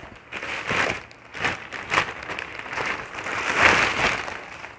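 White plastic courier mailer bag being pulled open and crinkled by hand: uneven rustling and crackling, loudest about three and a half seconds in.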